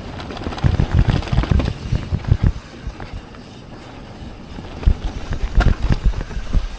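Yeti SB 150 full-suspension 29er mountain bike clattering and thudding over a rough trail, with wind noise on the microphone. There is a quieter, smoother stretch in the middle before the knocks pick up again near the end.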